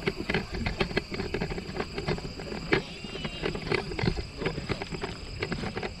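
Footsteps of several people walking down a dry dirt trail: uneven scuffing and crunching steps, two or three a second.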